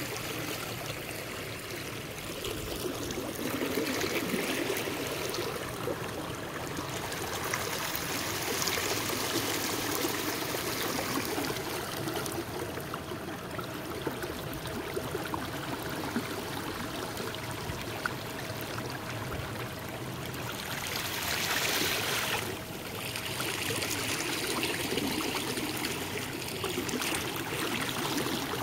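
Water trickling and splashing along the hull of a paddled kayak, the wash swelling and fading every few seconds.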